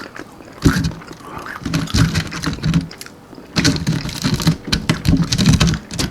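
Close-miked chewing of crisp almond-flour-breaded chicken wings: irregular crunches and wet mouth clicks.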